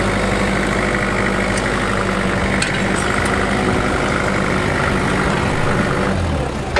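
Forklift engine running steadily, with a higher-pitched layer over it that cuts off about six seconds in.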